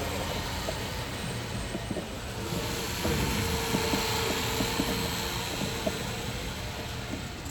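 Small RC model plane's motor and propeller running in flight, a pitched buzz that comes up about three seconds in and fades again toward the end, over a steady background noise with scattered small clicks.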